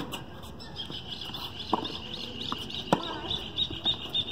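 Tennis balls struck by rackets and bouncing on a hard court during a rally, a sharp hit at the very start and a few more knocks after it. From about half a second in, a high chirping call repeats rapidly, about five times a second.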